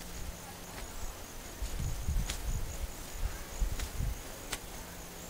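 An insect in the trees giving a steady, high-pitched drone, with irregular low thumps and a few sharp clicks in the foreground.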